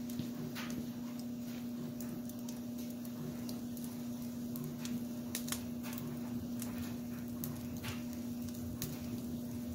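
Wood fire crackling in an open wood stove, with irregular sharp pops and snaps, over a steady low hum.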